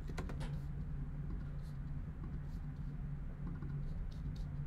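A few faint computer mouse and keyboard clicks, a quick cluster at the start and then single clicks every second or so, over a steady low hum.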